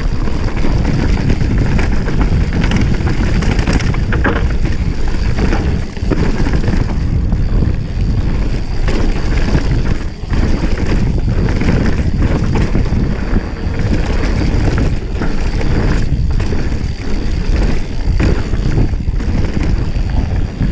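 Wind buffeting an action camera's microphone on a mountain bike descending fast, with tyres crunching over loose gravel and stones and the bike rattling over the bumps in many short knocks.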